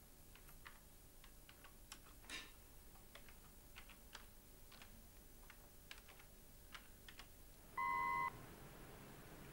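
Computer keyboard typing: irregular single keystrokes as a message is typed. Near the end comes a short, loud electronic beep lasting about half a second.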